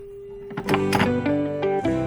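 A steady single-pitch landline telephone dial tone, cut off about half a second in by louder background music of plucked guitar notes.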